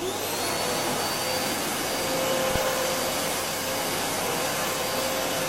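Vacuum cleaner running steadily: a constant whooshing hiss with a faint high whine and a lower hum over it, switched on at the very start.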